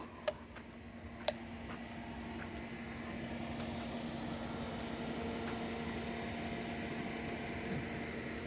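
A car engine running steadily at idle, a low even hum that grows a little louder over the first few seconds. Two light clicks come near the start.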